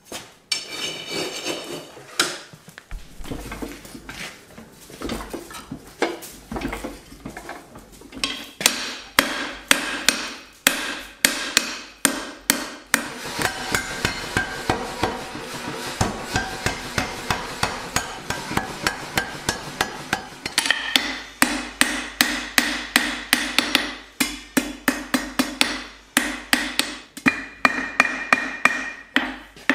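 Hammer blows on hot steel being forged, about two to three strikes a second, each with a metallic ring, over a steady low hum of a running machine motor. Near the end the strikes are hand-hammer blows on the bar against the anvil.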